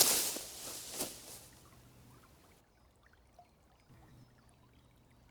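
Whoosh sound effect, the goddess's swishing as she shifts form, swelling suddenly and fading. A second, smaller whoosh follows about a second later, then only faint low ambience remains.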